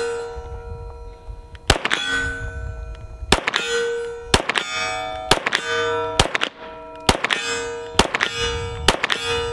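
A semi-automatic pistol firing about eight shots at a steady pace of roughly one a second. Each shot is followed by the ringing clang of a steel target being hit, which fades before the next shot.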